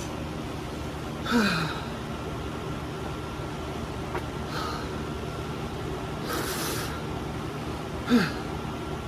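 A man gasping and groaning from the burn of a super-hot chip: two short cries that fall in pitch, about a second and a half in and near the end, and a hissing breath in between, over a steady low hum.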